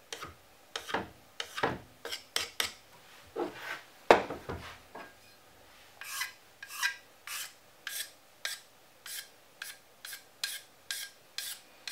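Lumber pencil drawn in quick strokes across a Norton waterstone, marking its face with lines before flattening: a short dry scratch with each line, about two a second. A louder thump about four seconds in.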